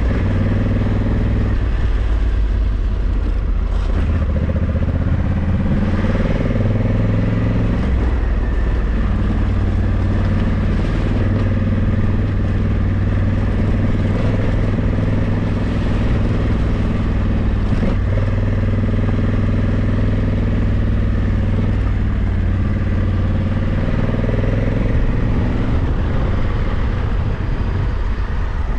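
Honda Africa Twin 1100's parallel-twin engine running under way, its revs rising and falling several times as the rider works the throttle and gears.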